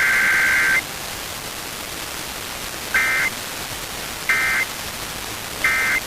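Emergency Alert System SAME data bursts, the two-tone digital screech of EAS, over steady radio static. A long header burst ends about a second in, then three short identical bursts follow about 1.3 s apart: the end-of-message signal that closes the alert.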